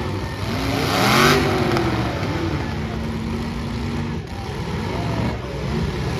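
Several demolition derby car engines revving, their pitch rising and falling, overlapping. The loudest rev swells about a second in.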